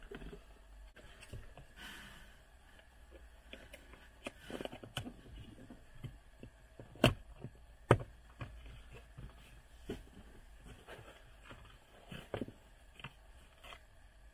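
Plastic footwell trim panels of a car being handled and pressed into place, with soft rubbing and light knocks. Two sharp clicks come about seven and eight seconds in.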